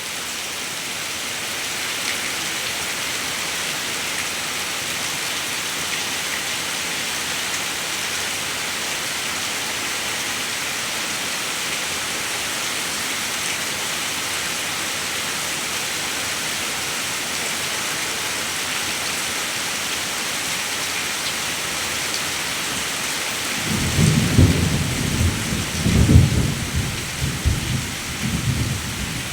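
Steady rain falling, an even hiss of many drops. About 24 seconds in, a low rolling rumble of thunder rises and swells several times to the end.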